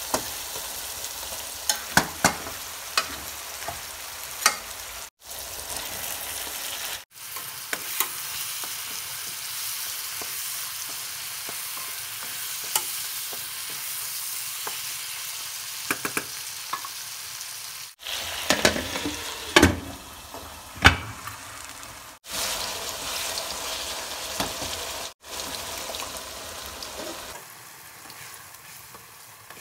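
Chicken pieces, and later sliced tomatoes, sizzling in hot oil in a wok, stirred with a wooden spatula that scrapes and knocks against the pan now and then. The sizzle breaks off briefly a few times and grows quieter near the end.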